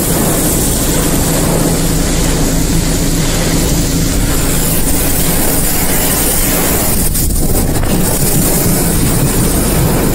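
Severe thunderstorm wind and heavy rain buffeting a car, heard from inside the cabin: a loud, steady rush of wind with rain hissing on the body and glass. A few sharp clicks about seven seconds in.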